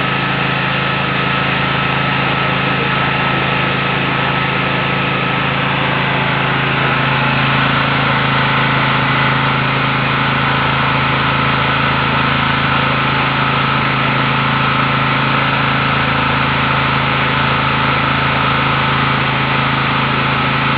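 Badja BG3200L petrol generator running steadily at constant speed, with an even engine drone. Its low note shifts slightly about seven seconds in.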